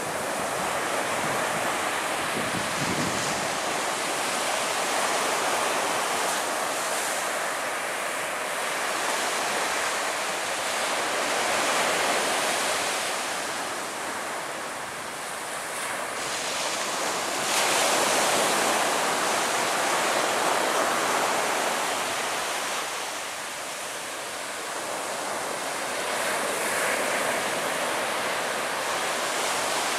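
Surf washing on the beach with wind buffeting the microphone: a steady rushing noise that swells and ebbs every few seconds.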